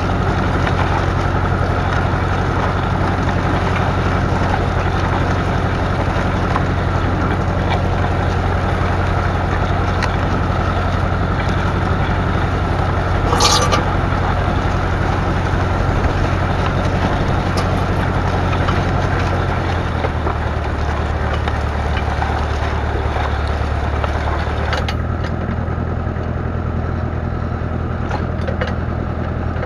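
McCormick 434's 2.5-litre four-cylinder diesel engine running steadily, with a single short clank about halfway through. About two-thirds of the way in the engine note changes, and soon after the sound eases a little.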